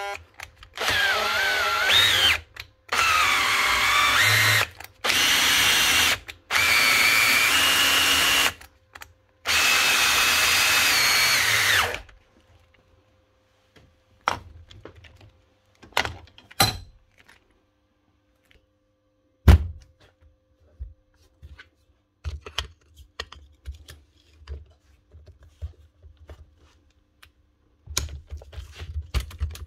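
Makita cordless drill motor run in five short bursts with its seized chuck clamped in a vise, the whine wavering under load as the drill strains against the stuck chuck. After that come quiet handling clicks and one sharp knock.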